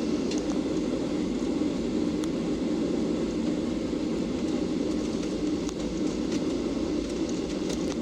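Steady cabin noise inside a Boeing 737-800 airliner: an even rumble of engine and airflow, with a few faint clicks.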